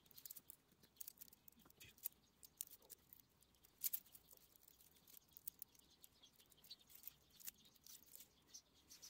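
Faint, scattered crinkles and small clicks of clear plastic protective film being peeled off a stainless steel watch bracelet while the watch is handled.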